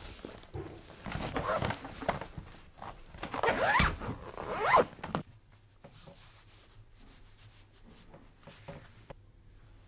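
Zipper on a fabric bag being pulled in several quick strokes, each rising in pitch, the last two loudest. It stops about five seconds in, leaving only faint rustling of clothing.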